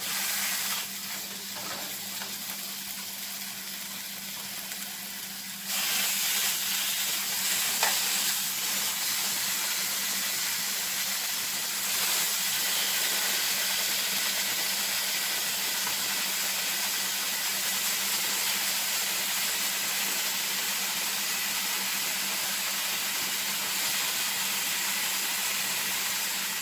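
Raw chicken pieces sizzling in a hot, dry nonstick frying pan with no oil, a steady hiss. It gets louder about six seconds in as more pieces are laid in, with a single sharp click about eight seconds in.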